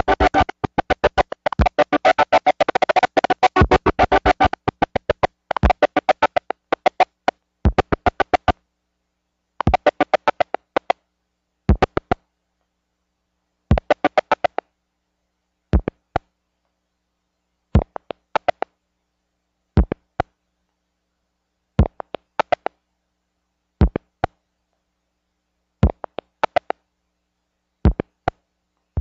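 Electronic music cut into stuttering fragments with dead silence between them. It is dense for the first eight or nine seconds, then thins to short bursts about every two seconds.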